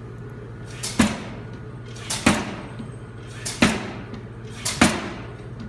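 200-pound Chambersburg air-driven utility power hammer delivering single blows, four strikes about one every 1.3 seconds, each with a short lead-in just before the impact, over a steady low hum.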